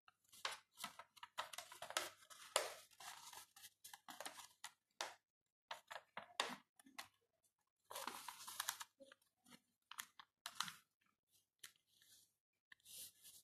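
A sheet of paper rustling and crinkling in irregular short bursts as it is folded by hand into origami, with a longer stretch of rustling about eight seconds in.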